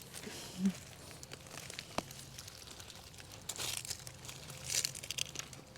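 Rustling and crunching of soil and sweet potato vines being dug through, with scattered small clicks and two louder rustling bursts about three and a half and five seconds in.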